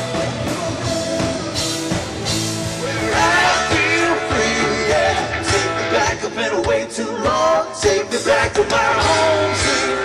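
Live rock band music with guitar and singing, growing fuller and louder about three seconds in.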